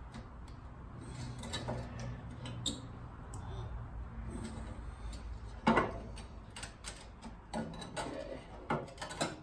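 Scattered light clicks and clatters of a glass sealed-beam headlight being handled and seated in its metal mounting ring, with a sharper knock a little before six seconds in and a few more near the end, over a low steady hum.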